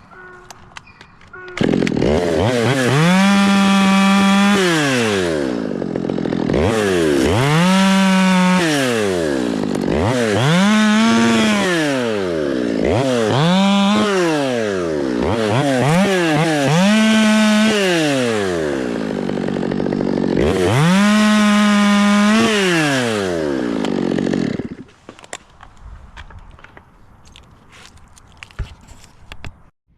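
Two-stroke chainsaw revving up and down about six times, each rise in pitch held for a second or two before falling away. It starts about two seconds in and stops around five seconds before the end.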